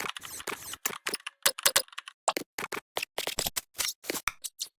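A fast, irregular run of sharp clicks and ticks, several a second, that stops abruptly near the end.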